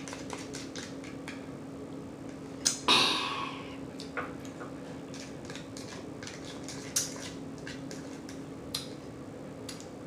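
Close-up eating sounds from a person eating applesauce: a run of short wet mouth clicks and lip smacks, with one louder, longer noisy sound about three seconds in. A steady low hum sits underneath.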